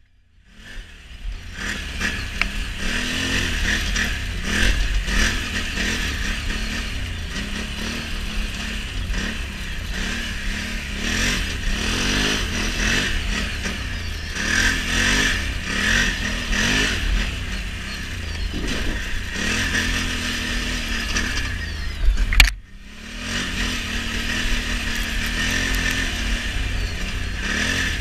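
Can-Am Renegade XMR 1000 ATV's V-twin engine running under way, its pitch rising and falling again and again as the throttle is worked. The sound cuts out abruptly at the start and, after a loud hit, drops out briefly about two-thirds of the way through.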